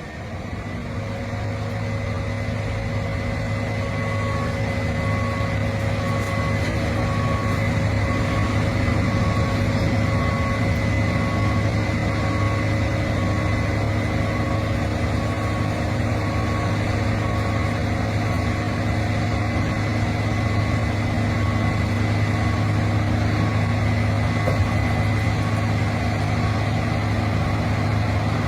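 Case IH 8260 Axial-Flow combine's 12.9-litre FPT diesel engine running steadily under load while harvesting corn: a deep steady hum with a higher whine, growing louder over the first several seconds. A short beep repeats about once a second through much of it.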